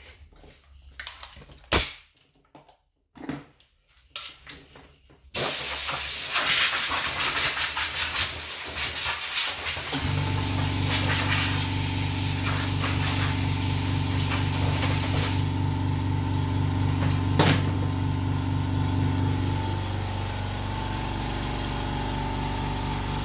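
A few knocks and clicks, then a loud steady hiss. About ten seconds in, a motor starts up with a steady hum and keeps running after the hiss stops a few seconds later.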